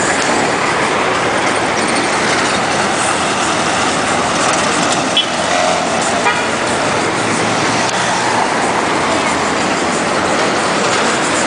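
Busy city street traffic: cars passing in a steady wash of engine and road noise, with people talking nearby and a brief high tone about five seconds in.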